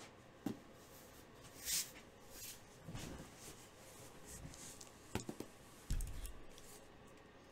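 Small handling sounds on a tabletop: scattered light clicks and taps, a brief swish a little under two seconds in, and a soft thump about six seconds in as a hand reaches onto the mat.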